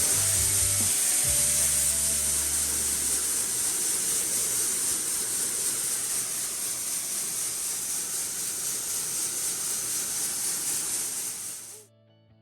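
A steady high-pitched hiss that slowly weakens and cuts off suddenly near the end, with a low hum in the first few seconds.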